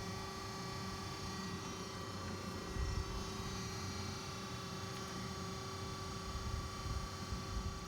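DoAll surface grinder running under power: a steady hum with several fixed tones over an uneven low rumble.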